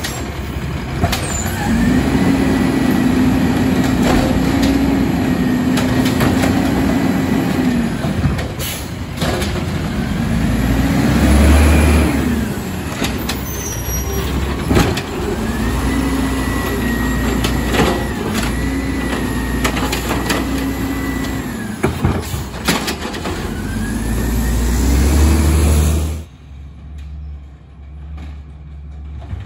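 Automated side-loader garbage truck working curbside carts: its engine revs up twice to drive the hydraulic lift arm, each time holding a steady raised pitch for several seconds before falling back, with clanks and knocks of the arm and carts in between. Near the end it drops suddenly to the quieter running of a truck farther off.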